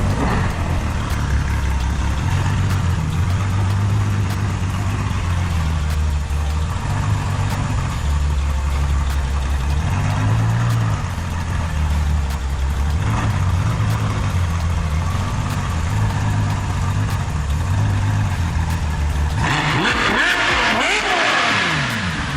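V12 supercar engine idling and creeping at low speed, its pitch wavering a little. Near the end it revs briefly, the pitch sweeping up and then falling away.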